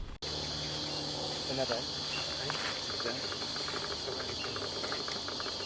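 A steady, high-pitched insect chorus drone, starting abruptly a moment in.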